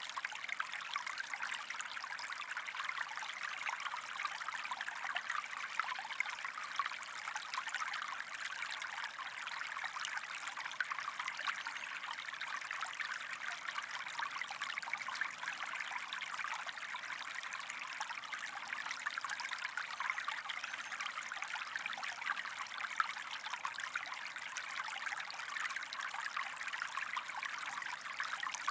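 Steady white-noise sleep sound, meant to resemble the sound inside the mother's womb: an even, unbroken rushing hiss with little bass, close to the sound of running water.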